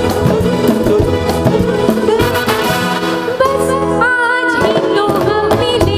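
Live band playing a Bollywood-style song, with a brass section of trumpets and trombones over the rhythm section. A woman's singing voice comes in a little past halfway.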